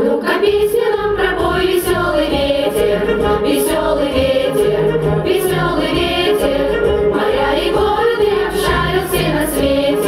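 Children's ensemble singing together into microphones over an accompaniment with a steady beat.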